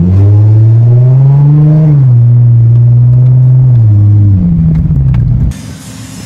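Nissan 350Z's V6 engine heard from inside the cabin while driving under throttle: the engine note climbs, drops about two seconds in, holds steady, then rises again. About five and a half seconds in it gives way abruptly to much quieter street noise.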